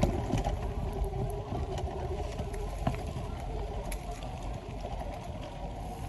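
Bicycle riding along a dirt trail: a steady rumble of tyres and air, with scattered clicks and rattles from the bike.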